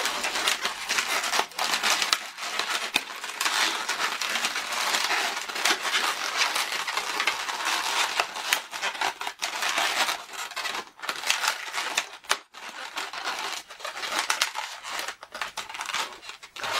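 Inflated 260 latex modelling balloons rubbing against each other and against the hands as they are twisted and wrapped together: a steady crinkly rubbing broken by many short sharp clicks.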